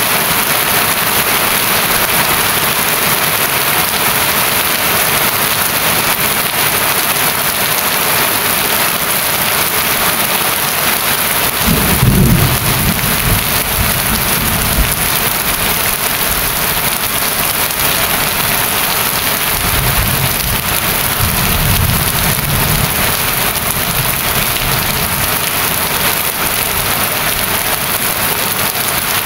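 Heavy rain falling steadily, a dense even hiss of drops on surfaces. Deep low rumbles come in twice, about 12 seconds in and again about 20 seconds in.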